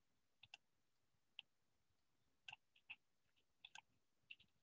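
Near silence with about ten faint computer mouse clicks, scattered irregularly.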